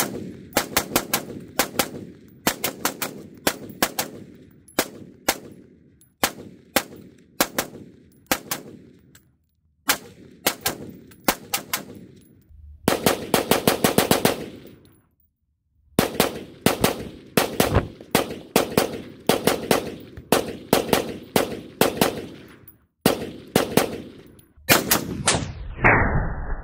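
Radical Firearms MHR AR-15 rifle in 5.56 firing strings of rapid semi-automatic shots, several fast strings separated by short pauses, with one dense rapid string about halfway through. Near the end the shots turn muffled.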